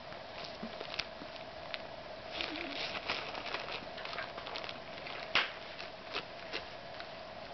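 A small clear plastic bag, an empty cat-grass packet, crinkling and crackling in irregular small clicks as a cat plays with it. The sharpest crackle comes about five and a half seconds in.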